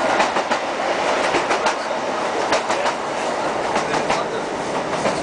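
A Class 156 Sprinter diesel multiple unit running along the line, heard from inside the carriage: a steady rushing noise with the wheels clicking sharply over the rail joints several times a second.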